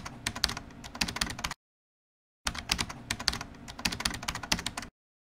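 Computer keyboard typing sound effect: two runs of rapid key clicks, each about two seconds long, with dead silence between them.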